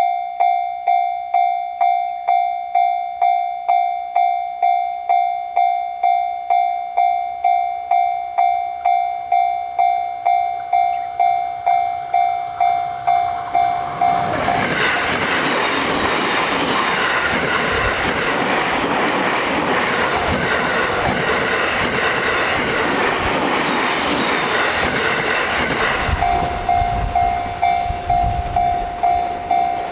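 Japanese railroad-crossing warning bell ringing its steady 'kan-kan' tone about twice a second. About fourteen seconds in, a JR Sobu Line train passes over the crossing with loud rumbling wheel and rail noise that drowns the bell for about twelve seconds, after which the bell is heard ringing again.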